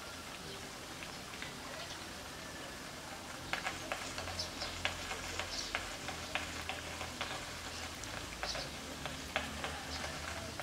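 Light, scattered crackling and ticking, thickening from about three seconds in: seedlings and moist potting medium being handled in a plastic seedling tray while the seedlings are pricked out.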